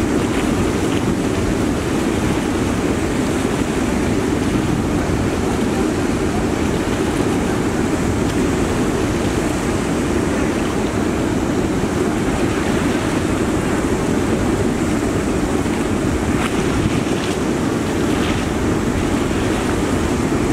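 Steady rush of fast-flowing, choppy river water, with wind buffeting the microphone.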